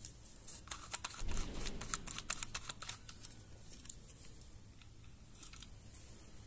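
Trigger sprayer head being unscrewed and pulled off a clear plastic spray bottle: a quick run of small plastic clicks and rattles for about two seconds, with a dull knock among them, then a few faint taps.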